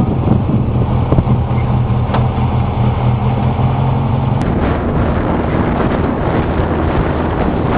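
Baja VW Beetle's air-cooled flat-four engine running steadily while driving over dirt, with a rush of road noise; the engine note shifts about halfway through.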